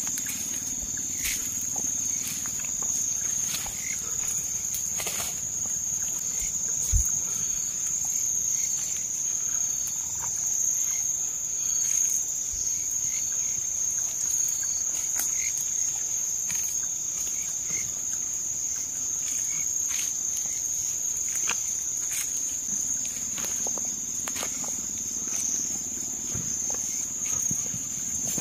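Steady high-pitched drone of night insects in the forest, with scattered faint clicks and rustles and a soft thump about seven seconds in.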